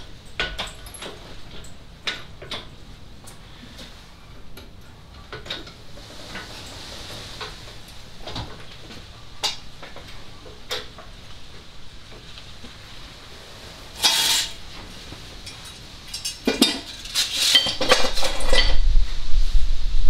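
Scattered metallic clinks and knocks from tools and steel parts being handled, with a louder knock about two-thirds of the way through and a denser clatter with a low rumble near the end.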